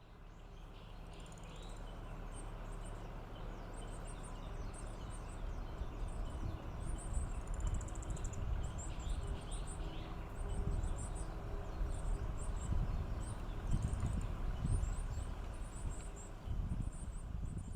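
Small birds chirping, many short high-pitched calls with a brief trill about eight seconds in, over a loud, uneven low rumble of background noise.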